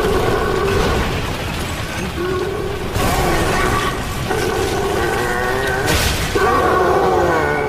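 Titan screaming in strained, drawn-out yells of about a second each, some sliding down in pitch near the end, over heavy crashing impacts about three and six seconds in.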